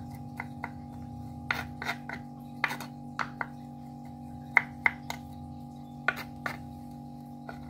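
Kitchen knife knocking and scraping on a wooden cutting board as it chops and mashes terubuk into crumbs. The sharp taps come irregularly, about two a second.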